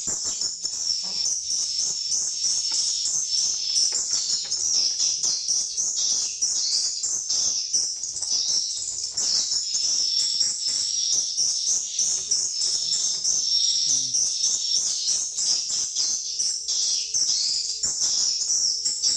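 A dense, continuous chatter of swiftlet calls: rapid high chirps and clicks packed together without a break. A faint steady hum joins about nine seconds in.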